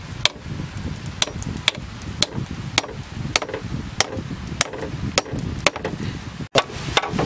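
A tool striking green bamboo over and over, sharp chopping knocks at about two a second, over a steady low rumble.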